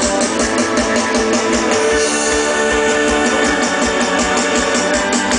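Live band playing an instrumental passage: guitar and drum kit, with a quick, steady hi-hat beat over low kick-drum thumps.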